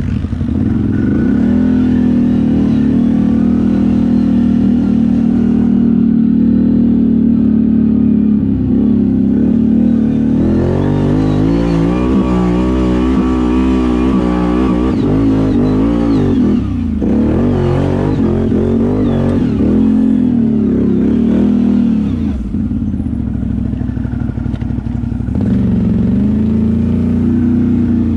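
ATV engine running hard on an off-road ride: steady for the first several seconds, then revving up and down repeatedly through the middle, easing off briefly and picking up again near the end.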